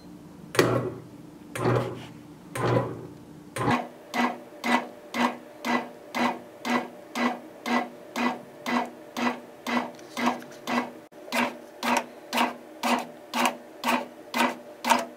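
Bread machine's kneading motor driving the paddle through flour and sourdough starter at the start of the mixing stage, running in even pulses of hum about two and a half times a second. The first few seconds hold three slower, deeper pulses before the steady rhythm sets in.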